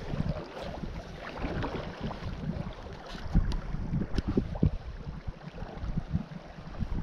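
Creek water rushing and splashing, with wind buffeting the microphone as irregular low rumbles and a few small clicks scattered through.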